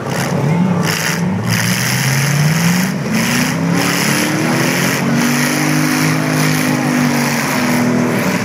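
Demolition derby car engines revving under a dense, noisy din. One engine's pitch climbs over a few seconds, holds high through the middle and drops near the end.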